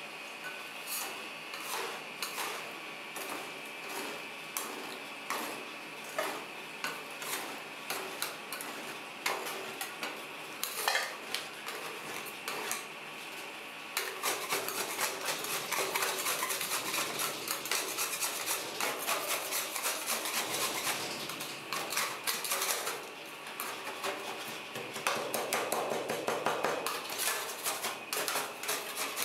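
Two metal spatulas striking and scraping on a steel ice-cream cold plate as milk and crushed chocolate wafer are chopped and spread. Spaced taps at first, then about halfway through a continuous, louder run of fast scraping and chopping as the mix freezes into clumps.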